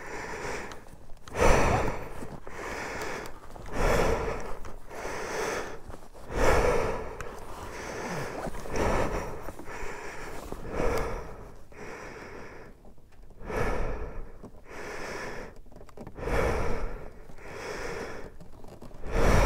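A man breathing heavily, loud breaths in and out repeating about every two seconds.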